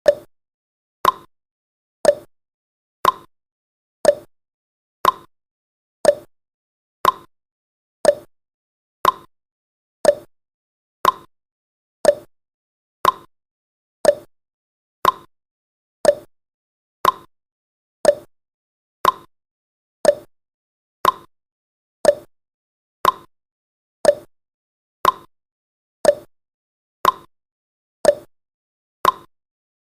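Countdown timer sound effect: a short, sharp tick once a second, steady and evenly spaced.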